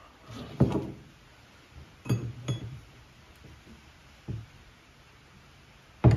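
Steel wrenches clinking and knocking against hydraulic hose fittings as they are tightened. There are about five separate metallic clinks: the loudest comes about half a second in, then two close together around two seconds, one near four seconds, and one at the very end.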